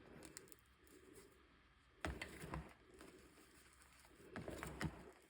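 Gym chalk crunching and crackling as it is broken up, in three short quiet bursts about two seconds apart.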